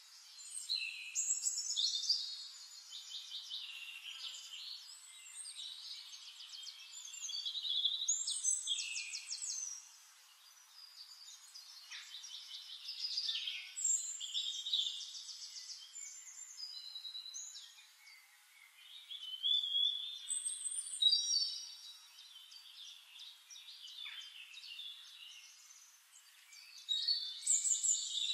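Several songbirds singing, overlapping phrases of high chirps and fast trills that come and go every few seconds, with nothing low underneath.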